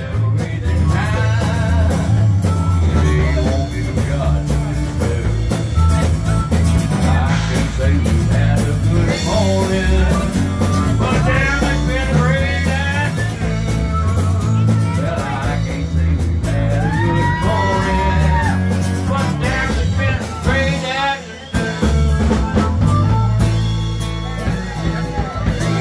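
Live blues-rock music: a man singing into a microphone over a strummed acoustic guitar, with a harmonica joining in.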